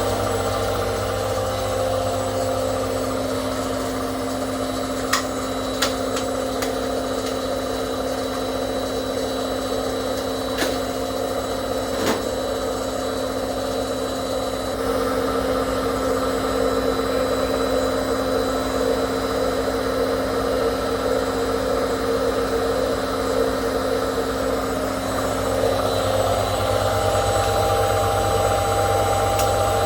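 Hotpoint 18680 Super Electronic washing machine spinning, its motor running smoothly on newly fitted motor brushes. There are a few light clicks in the first half, and the sound grows slightly louder about halfway through.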